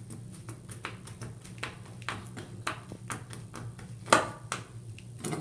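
Light metallic clicks and taps of a metal towel bar end and its wall bracket being handled, with one sharper knock about four seconds in.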